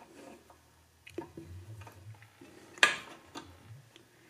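Small metallic clicks and taps as a hex key and fingers work the side-guide set screws on a small benchtop bandsaw. One sharper click with a short ring comes a little under three seconds in.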